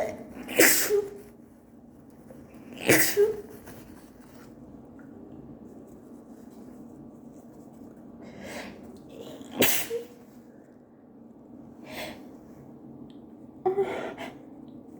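A woman having an allergy sneezing fit. Three loud sneezes come about half a second, three seconds and nine and a half seconds in, with softer sneezes or sharp breaths between them and near the end.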